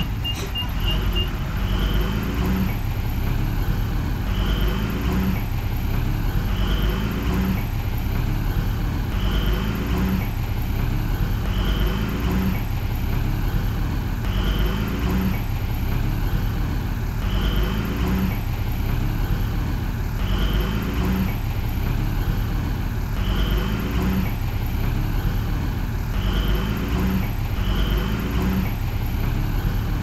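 Heavy construction machinery's diesel engine running steadily, with a sound that repeats about every two and a half seconds. A quick series of high beeps plays in the first second.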